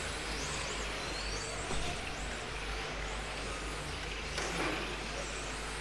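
A pack of 1:10 electric RC touring cars racing on a carpet track, their motors whining in high glides that rise and fall as they speed up and brake.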